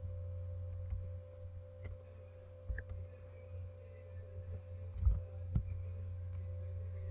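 Steady electrical hum with a steady higher tone above it, broken by a few scattered clicks and soft thumps from a computer keyboard and mouse as a value is typed in.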